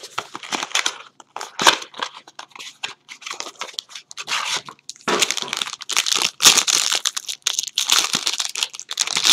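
Crinkling and tearing of trading card packaging as a pack is handled and opened, irregular rustles and crackles that grow louder about halfway through.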